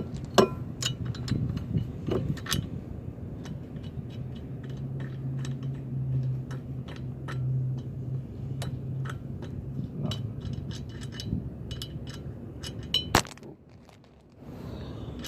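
Small metal parts and hand tools clinking and tapping as they are handled, with many sharp clinks at irregular intervals and a louder click near the end. A steady low hum runs underneath for a few seconds in the middle.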